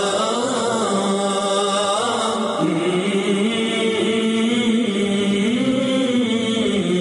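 Closing theme of chanted singing: a melodic vocal line of long held notes that glide up and down, a new phrase beginning about two and a half seconds in.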